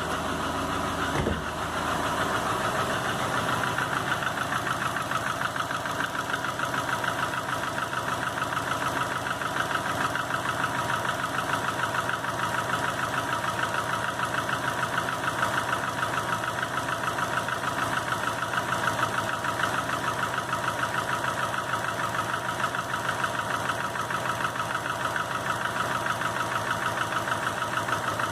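A 2005 Subaru Legacy GT's turbocharged 2.5-litre flat-four engine running at a steady idle with a rapid, even knocking, with one louder knock about a second in. The knock appeared after a rebuild on a refurbished block with a new crankshaft and bearings and used rods and pistons. The owner has ruled out oil pressure, exhaust leaks, the turbo and the belt-driven accessories, so its cause is unknown.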